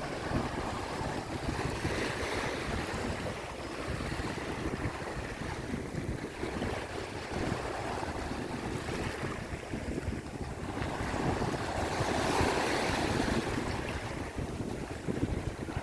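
Sea waves washing, swelling and fading every few seconds, with wind buffeting the microphone as a steady low rumble.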